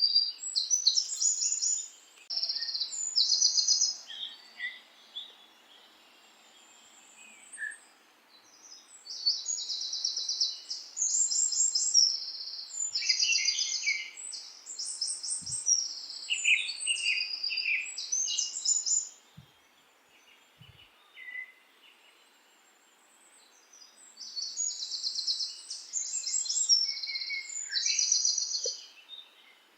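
Songbirds singing in rapid, high-pitched trilled phrases, pausing twice for a few seconds, over a faint steady background hiss.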